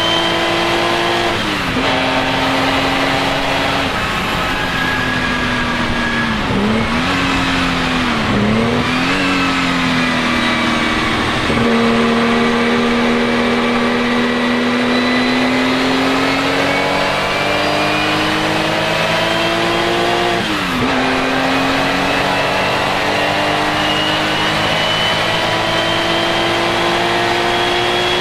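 Porsche 935 K3's twin-turbo flat-six racing engine running hard, its pitch climbing slowly through each gear and falling sharply at the gear changes, about a second in and again near the end. In the middle there is a quick run of dips and rises, like downshifts with throttle blips.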